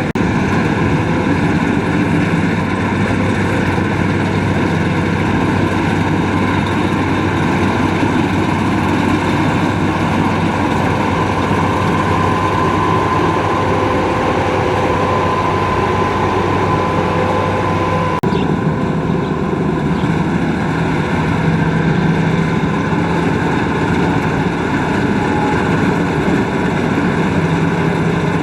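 Rice combine harvester running steadily, a continuous loud engine and machinery drone with steady humming tones. The sound changes abruptly about two-thirds of the way through.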